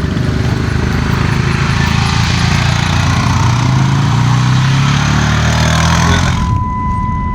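An engine running steadily under a loud rushing hiss. Near the end the hiss cuts off suddenly and a steady high tone comes in.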